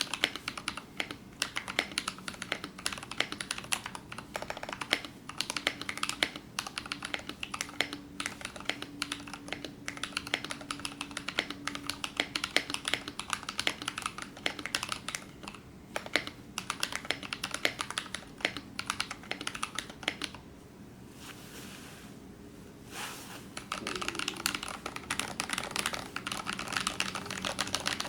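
Mechanical keyboard typing: Naevies switches with 55 g springs, lubed with Krytox 205g0, on a brass plate in an acrylic Tofu65 case, keystrokes clacking in a fast, dense stream. A lull of about three seconds falls roughly three-quarters of the way through before the typing picks up again.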